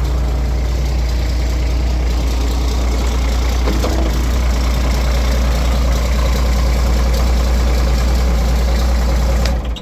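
Roadtec asphalt paver's diesel engine idling steadily and smoothly, without sputtering, after a fuel filter change and an exhaust leak repair; it is switched off near the end and stops abruptly.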